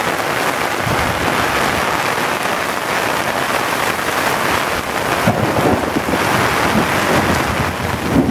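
Torrential rain pouring steadily onto a flooded street and pavement, a dense hiss of falling water. From about five seconds in a low rumble builds underneath it.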